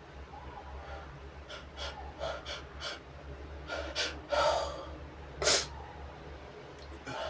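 A person working up to a sneeze brought on by tickling the nose with a brush: a run of quick, shaky sniffs and breaths, a drawn-out gasping inhale, then one sharp, loud sneeze about five and a half seconds in.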